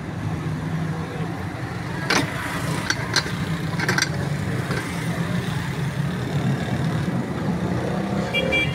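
Steady low rumble of an idling motor vehicle engine, with a few sharp knocks about two, three and four seconds in.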